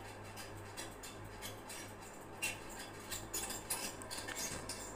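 Faint scattered clicks and light taps over a low steady hum, with a couple of brief high chirps.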